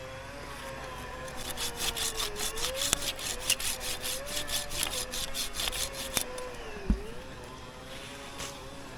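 Hand pruning saw cutting through wood in quick back-and-forth strokes, about four or five a second, starting about a second and a half in and stopping a little after six seconds. A steady wavering hum runs underneath, and a single low thump comes about seven seconds in.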